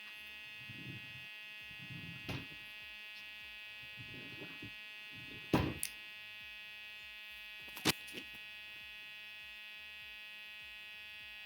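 Steady electric buzzing hum, with a few sharp knocks. The loudest knocks come about five and a half and eight seconds in.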